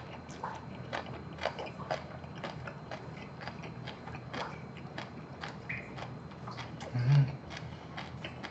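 Chewing a full mouthful of a perilla-leaf wrap of braised monkfish, bean sprouts and rice, with many small mouth clicks and smacks. A short low hum, the loudest sound, comes about seven seconds in.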